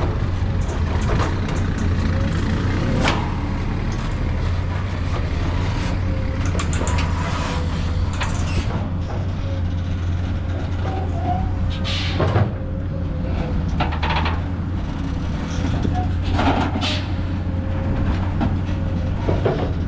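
Heavy truck's diesel engine running steadily with a deep hum, with a few short, sharp hisses, one about three seconds in and two more later on.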